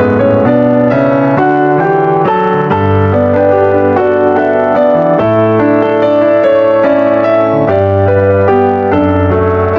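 Piano music: a melody of changing notes over held bass notes.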